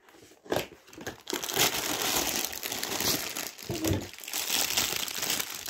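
Clear plastic bag crinkling and rustling continuously as a plush dancing cactus toy is handled and unwrapped, after a couple of short knocks from the cardboard box in the first second.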